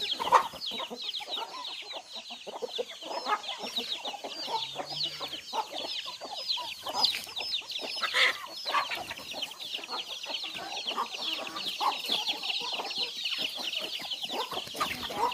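A flock of chickens: many chicks peeping without a break in quick, high, falling chirps, with hens clucking lower underneath and one louder call about eight seconds in.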